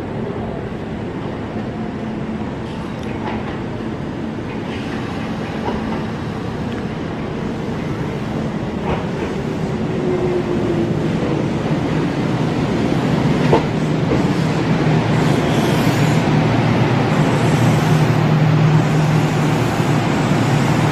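Kintetsu electric express train arriving at the platform. It gets louder as it pulls in, with a steady low hum from about halfway and a few sharp clicks from the wheels and track.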